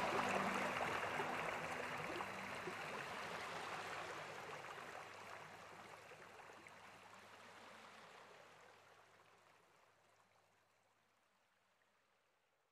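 Steady rushing noise like a flowing stream, with a few faint music tones at the start, fading gradually to silence.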